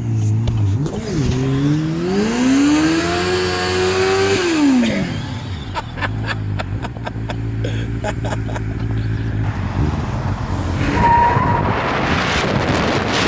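A vehicle engine revs up steadily for a few seconds, drops off sharply, then runs steadily with a quick series of clicks. Near the end a rising rush of noise takes over.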